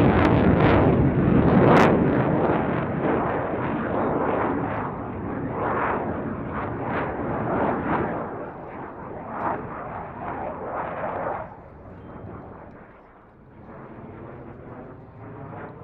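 Saab JAS 39C Gripen's single Volvo RM12 jet engine at high power in display flight: loud, rough, crackling jet noise that fades steadily and drops off sharply about two-thirds of the way through.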